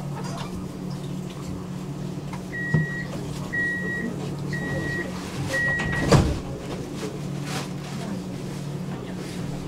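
Tram's door-closing warning: four short high beeps about a second apart, then a loud thud as the doors shut, over the steady hum of the standing tram's electrical equipment.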